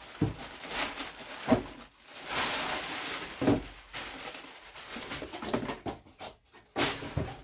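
Clear plastic bag crinkling and rustling as it is pulled off a boxed bicycle front rack, then cardboard packing rustling as it is taken off the metal rack, with a few sharp knocks along the way.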